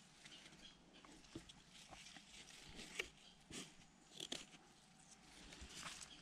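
Faint rustling of dry grass and leaves, with small clicks and taps from hands handling the cord and wooden sticks of a trap trigger; the sharpest taps come about three and four seconds in.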